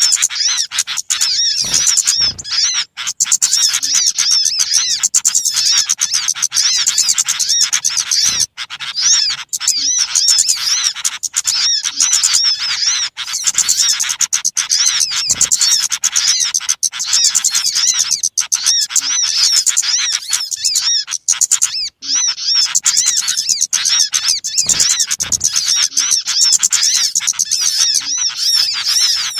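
Dense, noisy chorus of many small birds chirping and twittering rapidly with hardly a pause: a bird-catchers' lure recording (suara pikat) made to draw small birds in.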